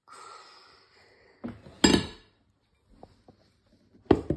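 Water poured from a small glass jar splashing onto a ceramic plate for about a second, then sharp clinks and knocks of glass and dishware, the loudest about two seconds in and another near the end.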